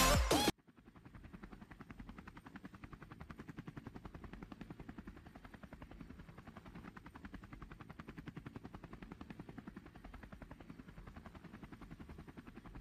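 Rapid, even throbbing of spinning rotor blades, several beats a second, with a faint steady high whine.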